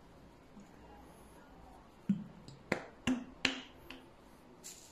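Plastic ketchup squeeze bottle sputtering as it is squeezed into a glass bowl: a few sharp pops and splats of sauce and air about two to three and a half seconds in.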